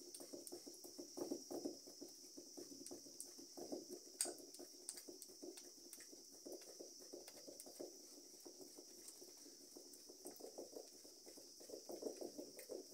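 Wooden spoon stirring and mashing sauce in a clay pot, faint quick scrapes and soft taps of the spoon against the pot, breaking up lumps in the sauce.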